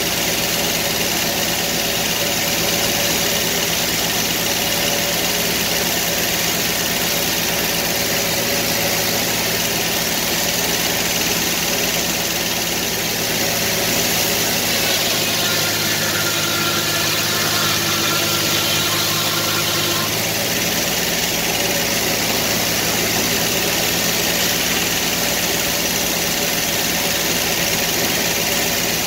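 Sawmill engine running steadily. For several seconds in the middle its note changes, with a higher whine joining in, before it settles back to the earlier sound.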